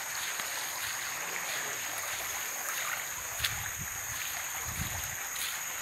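Steady rushing of a flowing river, with a constant high-pitched drone of forest insects over it.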